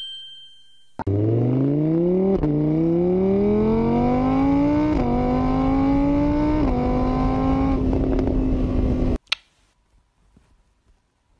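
A vehicle engine accelerating up through the gears: its pitch climbs steadily and dips briefly at each of four gear changes. It cuts off abruptly about nine seconds in, leaving near silence.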